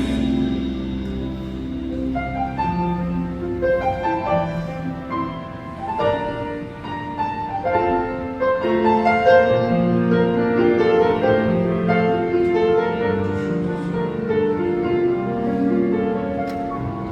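Instrumental music led by piano, a continuous run of notes over sustained lower notes, with no singing.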